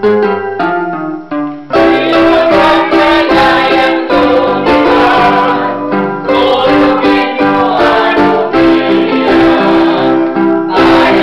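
Electronic keyboard playing a few notes alone, then a small mixed group of voices comes in a couple of seconds in, singing together in unison with the keyboard accompaniment.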